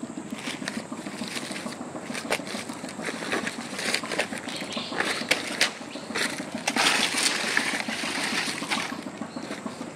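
Rustling and irregular crackling snaps of dry leaves and twigs, as of someone moving on foot through forest undergrowth. There is a louder rustle about seven seconds in.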